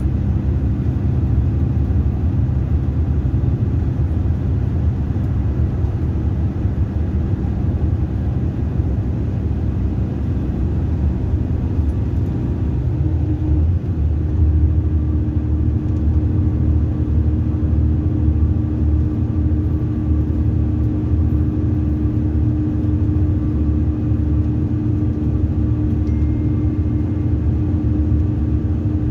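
Mercedes-Benz 2442 coach heard from inside the passenger cabin while driving: a steady, loud engine and road rumble. The engine note shifts to a higher pitch about halfway through.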